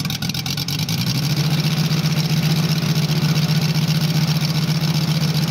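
Moki 250cc five-cylinder radial petrol engine of a quarter-scale RC Hawker Sea Fury running on the ground just after starting, uneven at first and settling into a steady idle about a second in.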